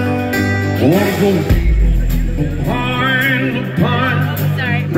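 Live country-rock band playing: a male lead vocal with acoustic guitar strumming, backed by electric guitar, bass and drums. A deep bass note swells about a second and a half in.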